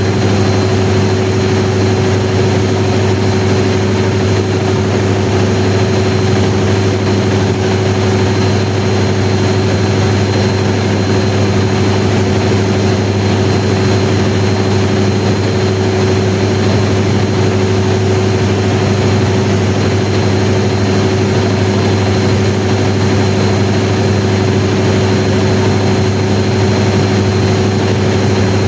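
1000 kW diesel generator set running steadily at constant speed under test: a loud, unchanging low drone with a thin steady high whine above it.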